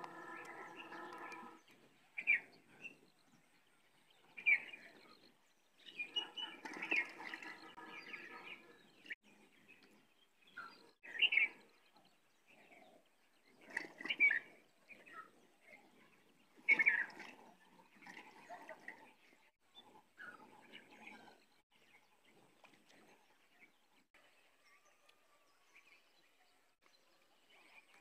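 Birds calling, a short bright call repeating every two to three seconds, with two longer drawn-out pitched calls near the start and around seven seconds in; the calls die away in the last few seconds.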